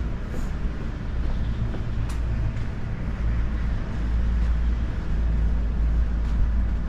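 Steady low rumble of a moving vehicle heard from inside, growing slightly louder about four seconds in, with a few faint clicks.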